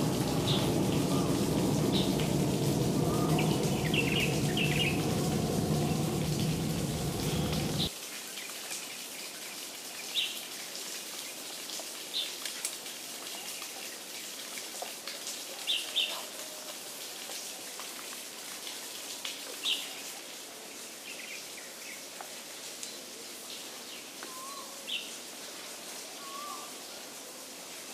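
Small birds chirping in short, scattered calls. For the first eight or so seconds a louder steady low din sits underneath, then cuts off suddenly, leaving the bird calls over a quiet background.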